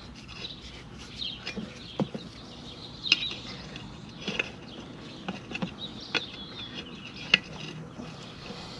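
Irregular clicks, taps and scrapes of screwdrivers levering a riding mower tire's bead onto its rim, with a few sharper knocks spread through.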